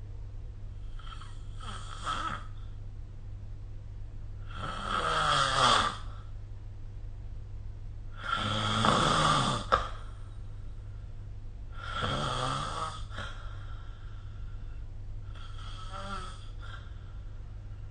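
A sleeping person snoring: five snoring breaths about every three and a half to four seconds, the middle two loudest, over a steady low hum.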